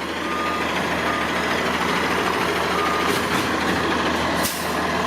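Crane truck's diesel engine running steadily, with a reversing alarm beeping on and off. There is a sharp knock about four and a half seconds in.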